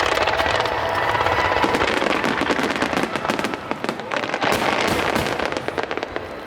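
Starmine fireworks: a rapid barrage of shells bursting with dense crackling. The crackle thins briefly about four seconds in, then picks up again.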